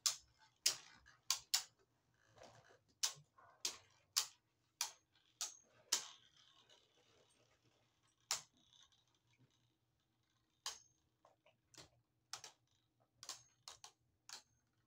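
Two Beyblade Burst spinning tops battling in a plastic stadium: sharp, irregular clacks as they collide with each other and the stadium walls, about two a second at first, sparser in the middle and closer together again near the end.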